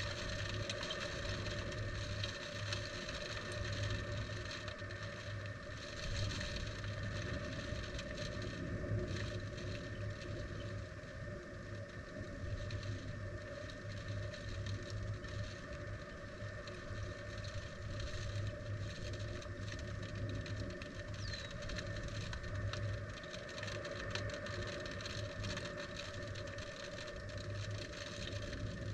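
Steady wind noise on a tornado probe's microphone under a storm, with a running crackle of raindrops striking the probe.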